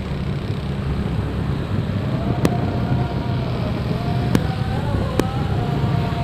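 Motorcycle engine running steadily while riding, with road and wind noise. From about two seconds in, a wavering tone joins, and three sharp cracks stand out.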